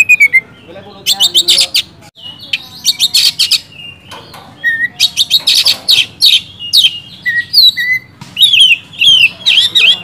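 Oriental magpie-robin singing in loud, rapid phrases of sharp, gliding whistled notes. Each phrase lasts about a second, with short pauses between.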